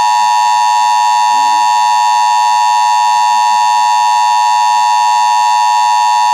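Emergency Alert System attention signal: a loud, steady two-tone electronic alarm tone held without a break. It is the signal that warns of an emergency broadcast about to follow.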